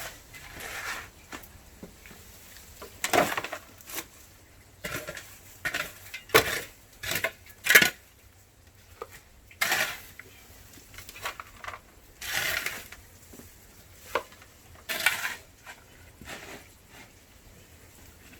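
Pots, dishes and metal utensils being handled, with irregular clinks, knocks and short scrapes.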